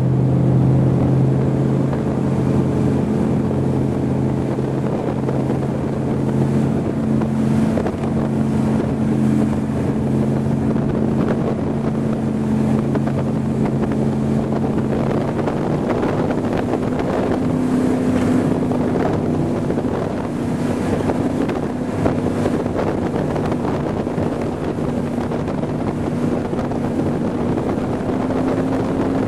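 Ford 460 cubic-inch big-block V8 of a Raider 26 powerboat running steadily at speed, with wind buffeting the microphone. The engine note climbs a little in the second half.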